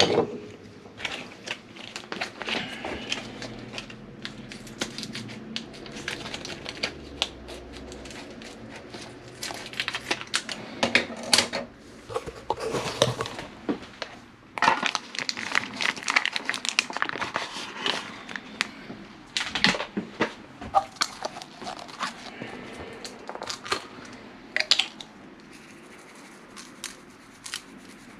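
Plastic packaging of a meal-kit steak crinkling, crackling and tearing as it is opened and handled, in irregular bursts, busiest in the middle and dying down near the end.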